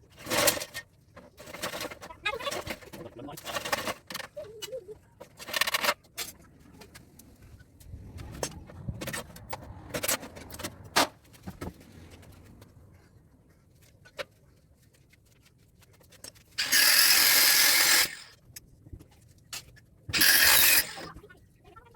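Clicks, knocks and rattles of parts being handled while an air-conditioner condenser is taken apart for scrap, then two loud bursts of rasping noise, about a second each, near the end.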